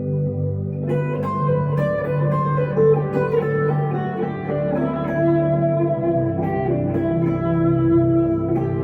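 Electric guitar, a 1962 Gibson Les Paul Custom, played through a Two-Rock tube amplifier with delay and reverb. A held chord rings out, then about a second in a melodic run of picked single notes begins, each note ringing on.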